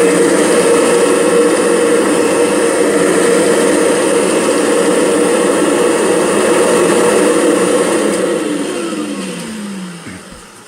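Kirby G6 upright vacuum's motor running steadily with the brushroll belt disengaged, then switched off about eight seconds in, its pitch falling as it spins down.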